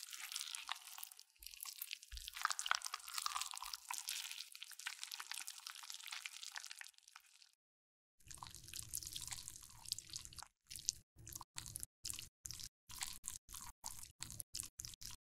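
Plastic piping bag crinkling and crackling as pink makeup paste is squeezed out of it. After a short break about eight seconds in, the paste is worked with a metal tool, ending in a run of soft, wet squishing dabs, about three a second, as it is pressed into the pan.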